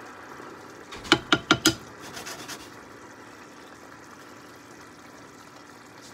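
A ladle knocked four times in quick succession against a steel skillet, ringing briefly, then a few lighter taps. Underneath, a pan of sauce simmers steadily.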